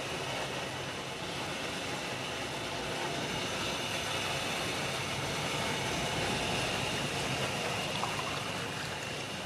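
Sugarcane juice press running steadily, its ridged steel rollers crushing stalks of sugarcane.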